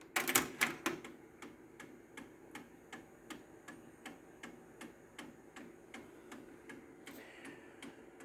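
Technics RS-TR165 cassette deck's recording-deck mechanism running with a rapid, regular clicking, about four clicks a second, louder in the first second, over a faint motor hum. The clicking is the symptom of a gear inside the mechanism that the owner thinks is going bad.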